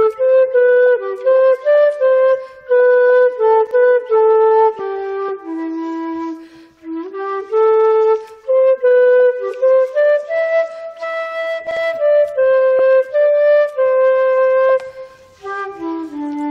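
Concert flute playing a slow solo melody, one note at a time in its lower range, with short breaks between phrases. The playing turns quieter near the end.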